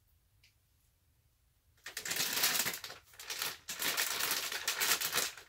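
Near silence, then about two seconds in a dense crinkling and rustling of plastic packaging being handled, going on in uneven surges.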